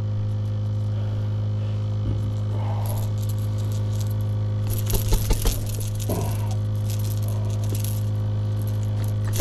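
Small metallic clinks and rattles of a fishing hook and wire leader being worked free of a catfish's mouth in a landing net, with a quick cluster of clinks about five seconds in. A steady low hum runs underneath.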